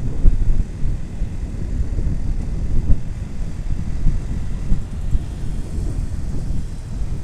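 Wind buffeting the microphone of a moving motorcycle, a loud low rumble that swells and dips, with the bike's engine and road noise mixed in.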